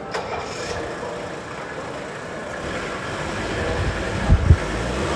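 Diesel car engine running on hemp biodiesel, idling and growing louder over the last couple of seconds. A click just after the start and two loud low thumps about four seconds in.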